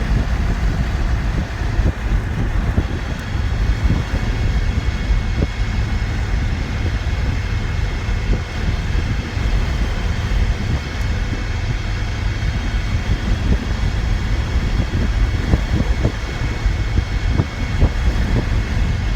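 Ford Ranger pickup driving at steady speed, heard inside the cab with its rear window missing: a steady low drivetrain and road rumble with wind coming in. The owner suspects the noise comes from a worn input bearing on the rear differential.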